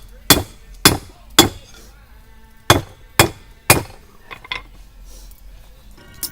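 Hand hammer striking hot 1095 steel on an anvil, stepping down the end of a knife blank: two sets of three hard blows about half a second apart, then two light taps.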